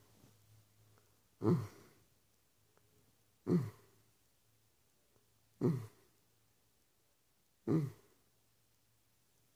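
An ill elderly woman moaning on each breath out: four short sighing moans about two seconds apart, each falling in pitch, over a faint steady low hum.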